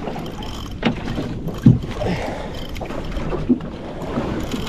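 Wind and water noise around a small open boat at sea, with a few short sharp knocks, the loudest about a second and a half in.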